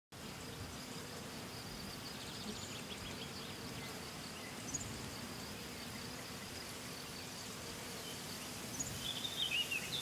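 Summer meadow ambience: a steady high insect drone with a few short bird chirps, the loudest a quick run of chirps near the end.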